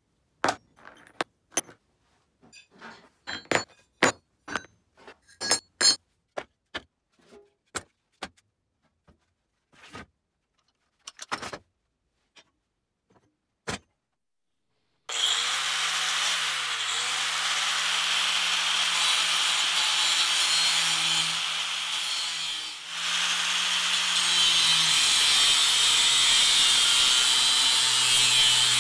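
Small metal nuts and bolts clinking and rattling against a plastic tub and a work mat, in scattered knocks. Then, about halfway through, an angle grinder starts up against rusty steel and runs loud and steady, easing off briefly once before carrying on, and cuts out near the end.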